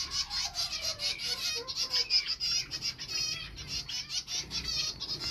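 A flock of finches, mostly zebra finches, calling and chirping continuously, with many short, high, overlapping calls.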